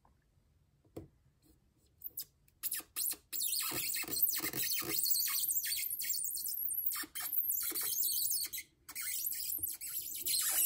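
Hard plastic of a CGC slab's inner well being split open along its top edge with a hand tool. A few sharp clicks come first, then a long, high scraping and crackling as the tool runs along the seam.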